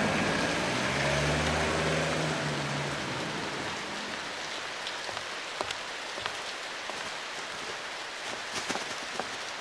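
Heavy rain pouring steadily onto wet pavement. A low drone fades out over the first three seconds, and scattered sharp taps come through the rain in the second half.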